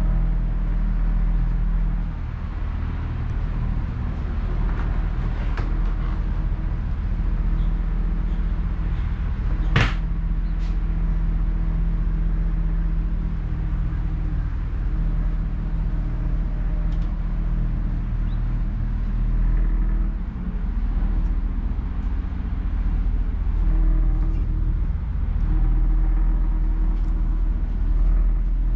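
Truck engine idling with a steady low drone, heard from inside the service body. One sharp click about ten seconds in.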